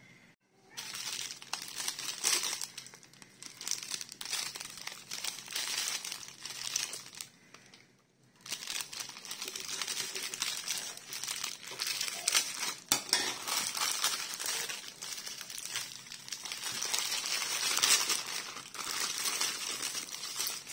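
Thin plastic packaging crinkling and rustling as it is handled and unwrapped from a stack of burger patties, with a brief lull about eight seconds in.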